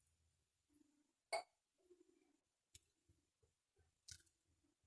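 Near silence: room tone, with a faint click about a second and a half in and a softer one near the end.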